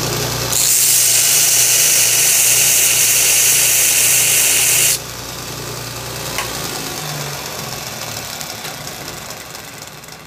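Grizzly G1015 2x72 belt grinder running, with a metal workpiece pressed against the belt for about four and a half seconds: a loud, even grinding hiss over the motor hum. The piece then comes off the belt, a single click follows, and the motor hum slowly fades as the belt winds down.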